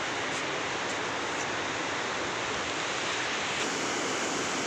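Steady rushing of the Manalsu, a mountain river running over rocks, with a slight change in its sound about three and a half seconds in.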